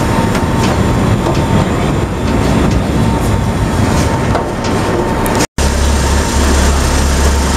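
Loud engine noise with scattered metallic clanks as vehicles drive onto a steel vehicle barge. After a cut about five and a half seconds in, a deep steady engine hum.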